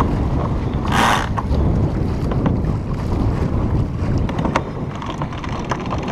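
Wind buffeting the microphone aboard a small sailboat under sail, a steady low rumble with a brief louder rush about a second in, and a few sharp clicks scattered through it.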